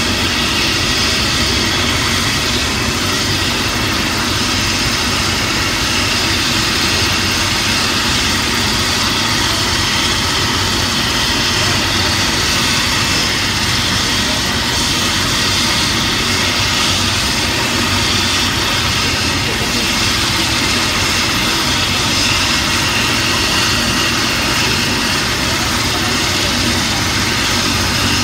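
Helicopter's turbine engine running steadily while it sits on the ground.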